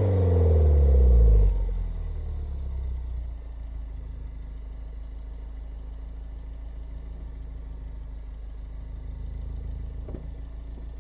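Mini Cooper S R56's turbocharged 1.6-litre four-cylinder, heard through its stock exhaust, dropping quickly off a rev in the first second or two and then settling into a steady idle.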